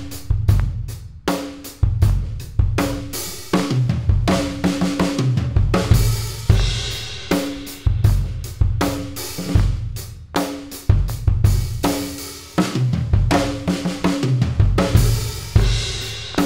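Acoustic drum kit played: bass drum and snare strokes with ringing toms and cymbals, a groove broken by a written drum fill.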